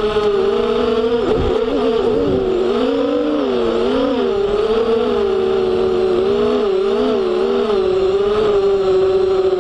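FPV quadcopter's brushless motors and propellers whining, the pitch swooping down and back up as the throttle changes, with a deeper dip a second or two in. A steady rush of air runs underneath.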